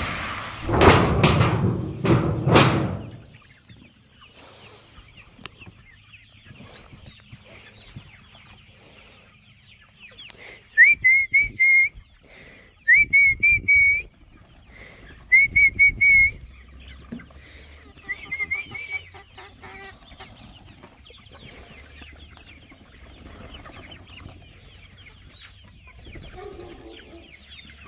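Free-ranging chickens clucking and calling. A few loud clattering knocks come in the first three seconds. About ten seconds in, four loud groups of short whistle-like calls that rise then hold come a couple of seconds apart.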